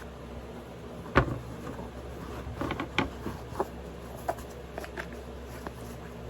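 Handling noise: scattered small knocks, taps and rustles as pieces of material are pushed and stuffed into a piece of gear, with the sharpest knock about a second in.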